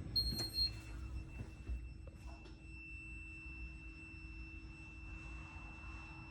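A short high electronic beep right at the start, typical of an Orona lift button being pressed, then a steady faint high whine over a low hum from the lift.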